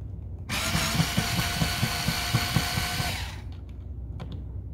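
Black+Decker LightDriver 4V cordless screwdriver running for about three seconds as it drives a screw through a metal blind bracket: a steady motor whine over a fast knocking, about five beats a second. It stops sharply, and a couple of light clicks follow.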